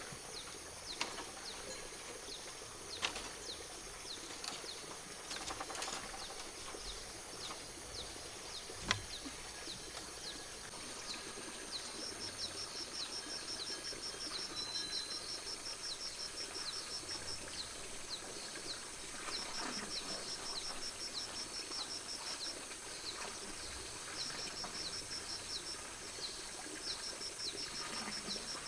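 Outdoor rural ambience of small birds chirping over and over, with a steady high insect drone and, from about twelve seconds in, several runs of fast high trills. A few sharp knocks come in the first nine seconds.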